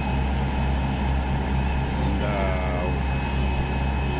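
Diesel engine of a Moskva river passenger boat running steadily, heard on board as a loud, even low drone.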